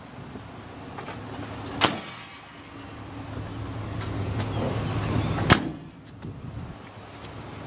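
Metal compartment doors on a service truck's utility body being shut: two sharp slams, one about two seconds in and a louder one about five and a half seconds in, with quieter handling noise between.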